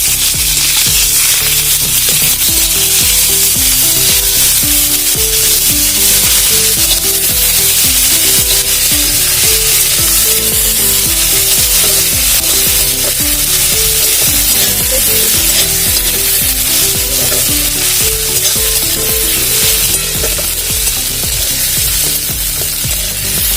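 Onion paste sizzling steadily as it fries in hot vegetable oil in a kadai.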